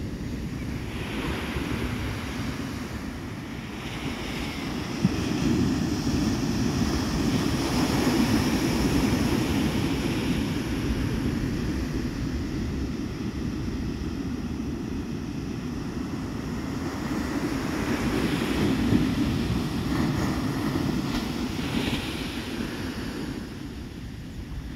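Ocean surf breaking and washing up a sandy beach, swelling twice in long surges. Wind buffets the microphone.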